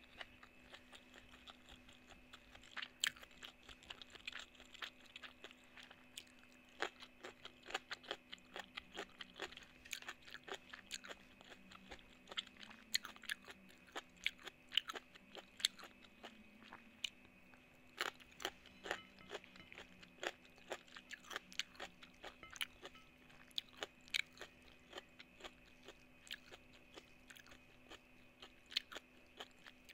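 Close-miked crunching and chewing of mouthfuls of rice and raw cucumber eaten by hand: a dense, irregular run of crisp crackles and clicks. A faint steady hum lies underneath.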